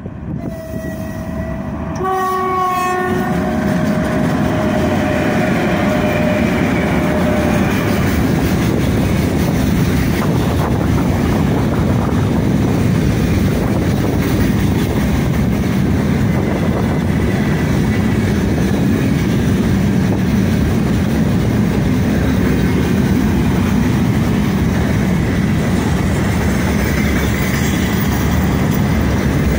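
4ES5K "Ermak" electric freight locomotive sounding its horn as it approaches and passes, the crew's greeting: a short note about half a second in, a chord-like blast about two seconds in and a longer note that fades out around eight seconds. Then a long train of freight gondolas rolls past close by with a steady loud rumble and rhythmic clickety-clack of wheels over rail joints.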